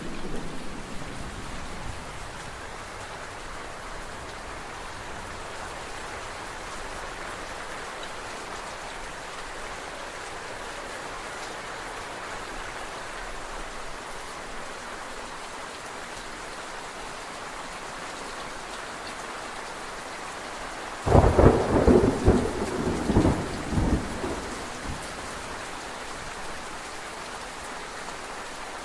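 Steady rain falling. About two-thirds of the way through, a sudden loud crack of thunder breaks in and crackles and rumbles for about three seconds before the rain alone carries on.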